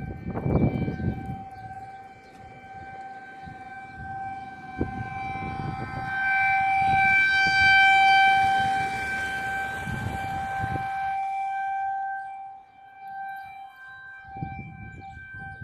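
Tornado warning siren sounding one steady tone during a test; it swells louder about six seconds in and falls back around twelve seconds. Low rumbling noise near the start and again near the end.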